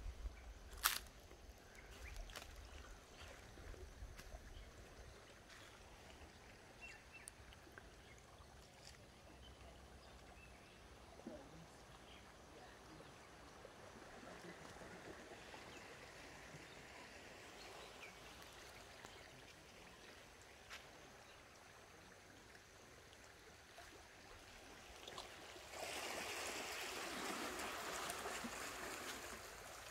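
Faint running water, with a sharp click about a second in and a few lighter ticks. Near the end a louder rush of water lasts about three seconds.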